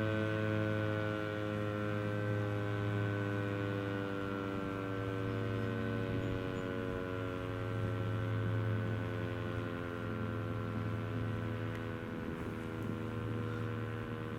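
Sentry 3V8 outdoor warning siren winding down after its alert signal: a steady tone sliding slowly and evenly down in pitch, with a low hum beneath it.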